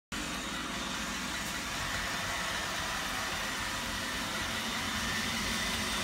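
Roomba robot vacuum running: a steady motor hum with a faint high-pitched whine.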